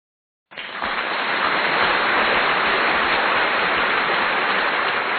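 Audience applauding in a steady, dense wash of clapping. It starts abruptly about half a second in, after dead silence.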